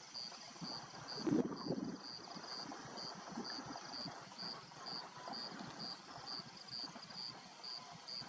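Old male lion chewing and tearing at a warthog carcass: irregular crunching and tearing sounds, loudest about a second in.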